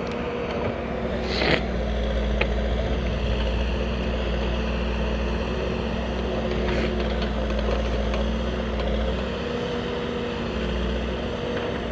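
Escorts Digmax-2 backhoe loader's diesel engine running steadily under work, with a low rumble and a few faint clanks.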